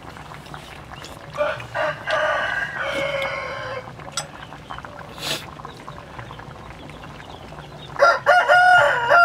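A rooster crowing twice: a crow of a couple of seconds about one and a half seconds in, and another, louder one starting near the end.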